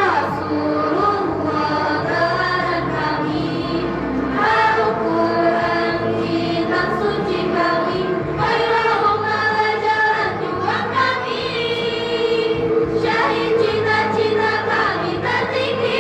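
A choir singing, with several voice parts holding long notes together.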